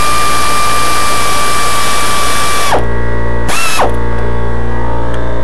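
Power drill running with a steady whine, then released and spinning down about three seconds in. It is followed by a short trigger blip and then a steady low hum.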